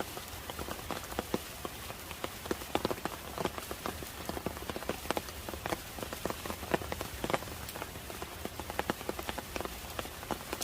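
Rain falling steadily: a constant hiss with many irregular, sharp drips and drop taps close by.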